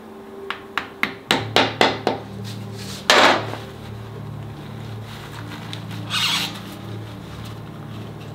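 A hammer tapping a small screwdriver in between the shift shaft and its oil seal on a Harley-Davidson V-Rod engine, to pry the seal out: about seven light taps in quick succession in the first two seconds. A short scrape follows about three seconds in, and another about six seconds in.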